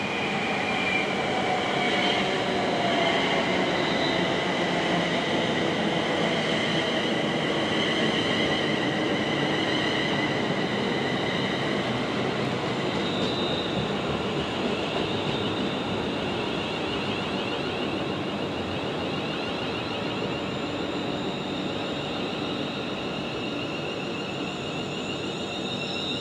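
London Northwestern Railway Class 350 Desiro electric multiple unit running slowly past. A steady rumble of wheels on rails, with several high whining tones over it that fade slightly toward the end.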